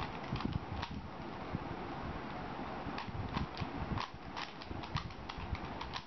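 3x3 Rubik's cube being turned quickly by hand: rapid, irregular plastic clicking and clacking of the layers, in quick runs of turns, over a steady hiss.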